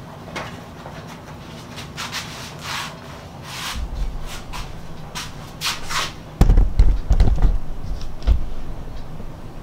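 An old Dayton quarter-horsepower electric motor running a motor arbor with a large 3M abrasive wheel: a steady hum with repeated short rasps. It runs somewhat out of balance from the wheel's heavy rotating mass. A run of heavy thumps comes about six and a half seconds in, with one more a second or so later.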